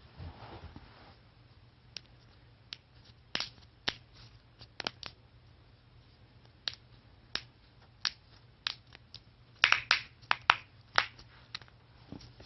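Joints cracking under a manual adjustment: a string of sharp pops at irregular intervals, beginning about two seconds in and bunching into a quick cluster near the end.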